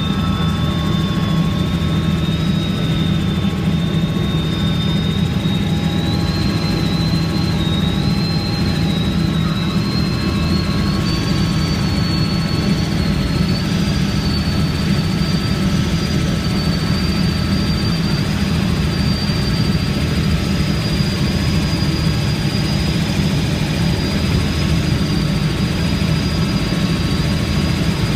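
Helicopter turbine and rotor running steadily, a constant low drone with a thin high whine that climbs slowly in pitch over the first half, then holds.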